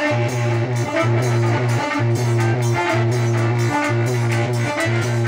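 Live instrumental music for a Hindi devotional folk song, with no singing: a steady bass line broken by short gaps about once a second under a repeating melody.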